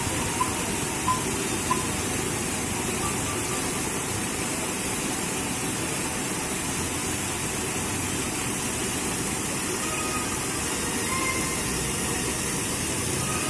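Fountain jets splashing and spraying steadily as an even rushing hiss. Three short high blips stand out in the first two seconds.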